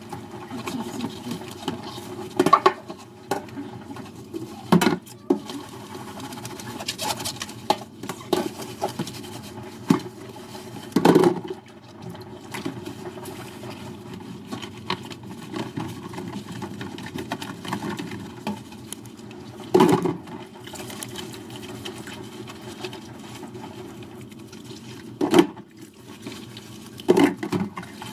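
Dishes being washed by hand in a sink: a steady scrubbing, rushing sound with short knocks and clinks of dishes against the sink every few seconds.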